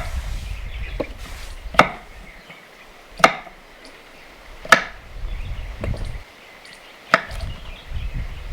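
Knife chopping food on a wooden board: five hard, separate chops about a second and a half apart, with a few lighter knocks between them.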